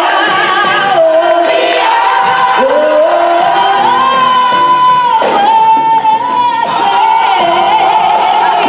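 Gospel choir singing with a female soloist on a microphone. A voice glides upward and holds one long high note about four seconds in.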